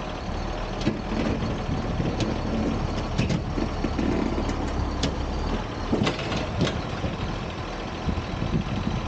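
Farm tractor engine running at idle, with a handful of sharp knocks and clanks over it.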